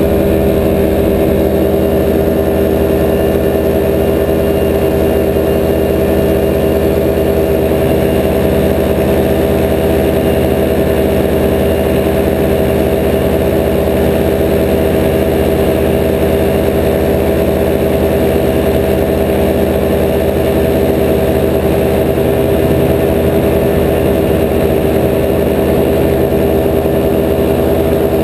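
Paramotor engine and propeller running steadily at a constant cruise setting, one even pitched hum with no change in speed.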